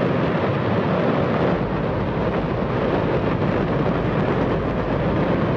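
Space Shuttle main engine, a liquid hydrogen and liquid oxygen rocket engine, firing on a static test stand: a loud, steady rushing roar, the loudest noise a person can bear, with its deep rumble growing stronger about a second and a half in.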